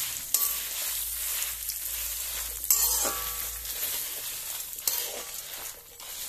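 Dried red chillies, urad dal and parboiled rice stirred with a steel spatula in a kadai with a little hot coconut oil, roasting for chutney powder: a light sizzle with scraping strokes of the spatula against the pan, the loudest about three seconds in.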